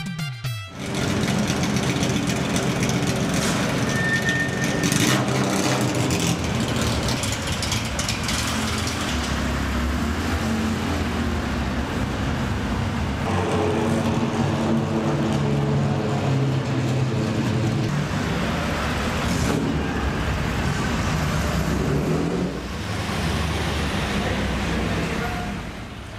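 Engines of classic cars running as the cars drive past on a city street, with traffic noise.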